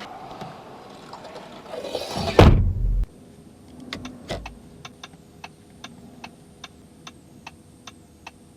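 Audi A5 car mechanisms: a rising rush that ends in a loud thump about two and a half seconds in and cuts off sharply. A couple of clicks and a softer thump follow, then an even ticking about two and a half times a second.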